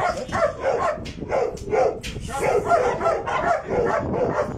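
A dog barking over and over, two or three barks a second.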